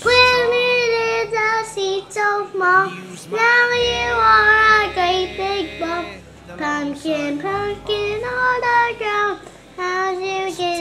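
A young girl singing a song, holding long notes in phrases with short breaks between them.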